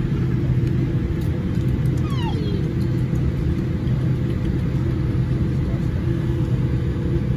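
Jet airliner cabin rumble from inside the passenger cabin as the plane rolls along the ground, a steady engine drone with a low hum. About two seconds in, a brief high whine falls in pitch.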